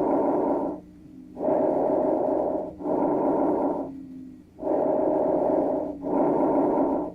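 Recorded bronchovesicular breath sounds as heard on auscultation of the lungs. Each cycle is a noisy breath in and a breath out of about equal length, with a short pause between them, and the cycles come about every three seconds.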